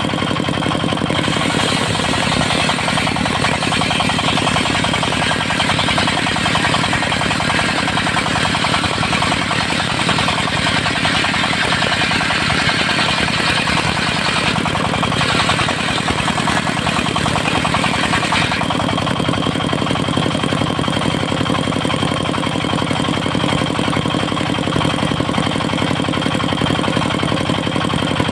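Diesel engine of a mobile circular sawmill running steadily. From about a second in until about two-thirds of the way through, a hiss joins it as the saw blade cuts through teak, with a short break partway, then the engine runs on alone.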